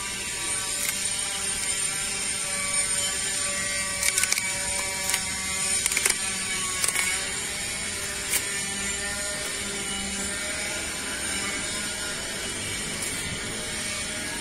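Cardboard stencil glued to a painted cotton T-shirt being scratched at and peeled off by fingers: scattered short rasping clicks, most of them between about four and eight seconds in, over a steady low hum.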